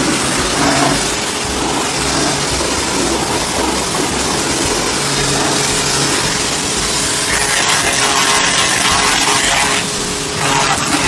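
Total TGT11246 160-bar pressure washer running: a steady pump hum under a loud hiss of water spray. The hiss brightens for a few seconds about two-thirds of the way through, then briefly drops.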